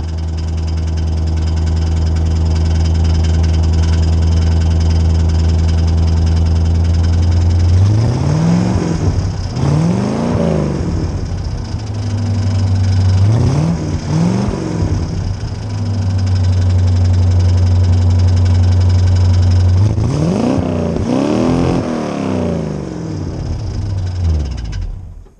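1979 Chevrolet El Camino engine idling through its welded-up exhaust, no longer straight-piped, then blipped in three pairs of short revs that rise and fall back to idle. The engine shuts off just before the end.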